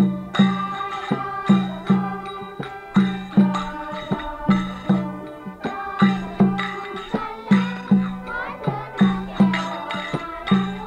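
Background music with a steady, low drum beat under a melody.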